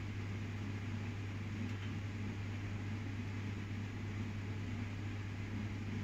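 A kitchen appliance or fan running: a steady low hum with an even hiss over it, unchanging throughout.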